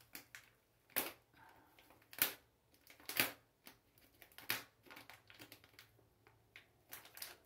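A dull Remington knife cutting and scraping at plastic packaging: a series of short, sharp crinkling rasps, the loudest about one, two, three and four and a half seconds in.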